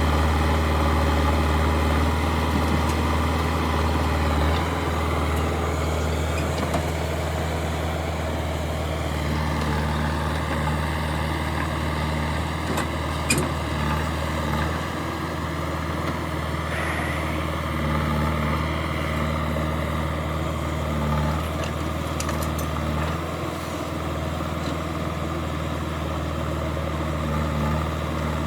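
Heavy diesel engine running steadily at low revs, with one sharp knock about halfway through.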